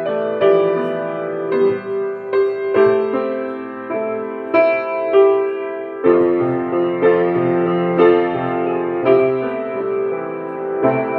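Piano played slowly, chords and melody notes struck roughly once a second and left to ring.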